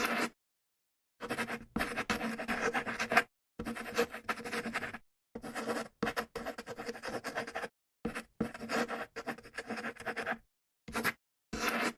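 Writing on paper: scratchy writing strokes in a series of short stretches, each starting and stopping abruptly with dead silence between.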